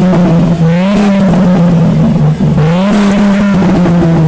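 Car engine revving through its twin exhaust, pitch climbing about a second in, dipping briefly, then climbing again near three seconds and held at raised revs.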